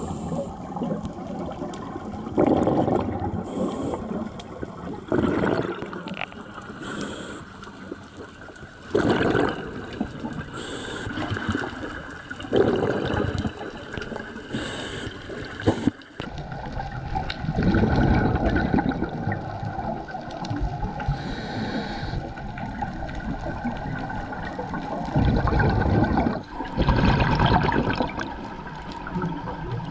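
Scuba diver breathing underwater through a regulator: bubbles of exhaled air rush and gurgle out in irregular bursts every few seconds, over a steady water hiss.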